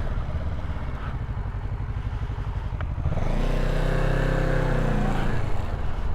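Motorcycle engine running low and rough at idle or light throttle, then revs up and back down about three seconds in.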